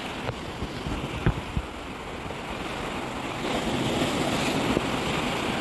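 Small waves washing and foaming over rocks along the shore, with wind on the microphone. The wash swells louder after about three and a half seconds, and a few light knocks come in the first two seconds.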